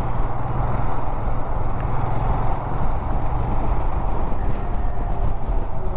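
Royal Enfield Himalayan's single-cylinder engine running steadily as the motorcycle is ridden in traffic, under a constant rush of wind and road noise.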